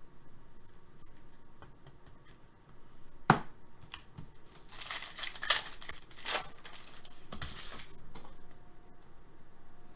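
Trading-card pack wrapper being torn open and crinkled, with a sharp snap a little over three seconds in and a few seconds of crackling tearing after it.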